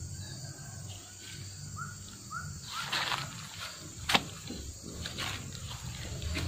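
Outdoor ambience in overgrown grounds: a few rustling footsteps in dry leaves and debris, with one sharper snap about four seconds in, and two short rising chirps near the two-second mark over a steady low hum.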